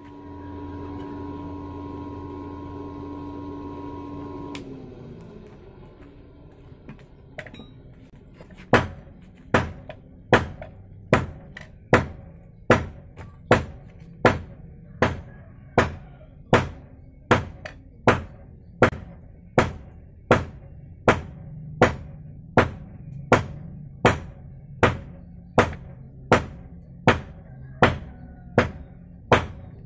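Hand hammer striking red-hot bearing steel on an anvil as it is forged into a knife blade: a steady run of sharp, ringing blows about once a second, starting some nine seconds in. Before that, a steady hum winds down and fades about four and a half seconds in.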